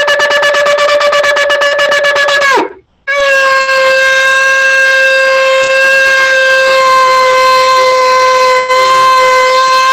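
Shofar blown in two blasts. The first, already sounding, has a fast flutter and breaks off about two and a half seconds in. After a brief gap a second, long steady note begins and is held.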